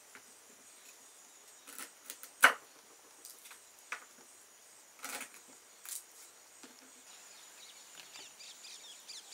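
Chef's knife chopping drumstick (moringa) pods on a wooden cutting board: a run of separate, irregular sharp chops, the loudest about two and a half seconds in. Faint bird chirps come in near the end.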